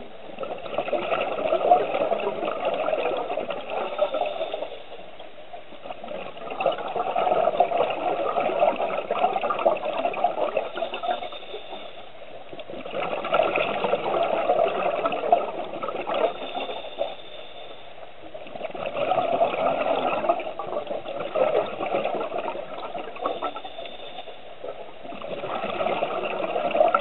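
Scuba regulator exhaust bubbles heard underwater: a diver breathing out in long bubbly rushes about every six seconds, with quieter breaks between breaths.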